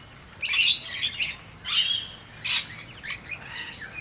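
A mixed flock of rainbow lorikeets and noisy miners calling, a string of harsh high-pitched calls every half second or so.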